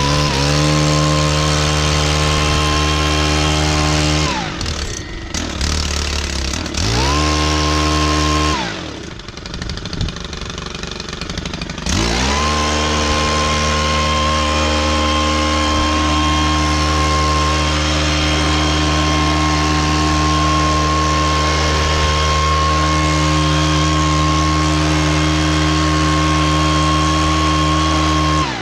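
Gas-engine leaf blower blowing sawdust off a sawmill. It is throttled up three times, twice briefly, with quieter idling in between, then held at full throttle for the long last stretch before it drops back.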